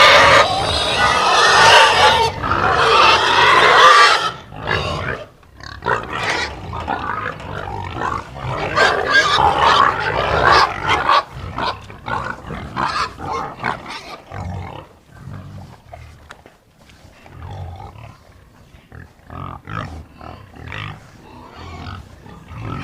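Pigs squealing loudly for the first four seconds or so, then a long run of shorter grunts and snorts that grow quieter toward the end.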